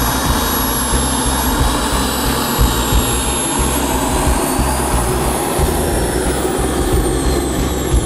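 Small turbine engine of a radio-controlled model jet running, a high whine over a steady loud rush, as the jet taxis close by. Midway the whine slowly rises in pitch and then falls again.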